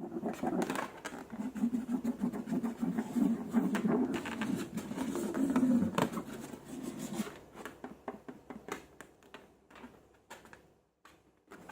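Slime and balloon being squeezed and worked close to the microphone: dense wet crackling and clicking over a low wavering tone. It thins out after about seven seconds to scattered clicks.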